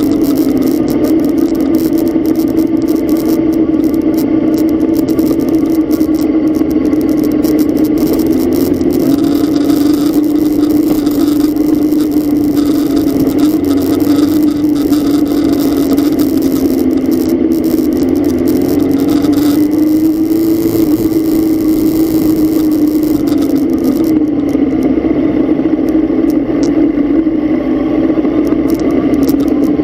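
A vehicle engine running steadily under way, its droning pitch drifting slightly up and down as the speed changes.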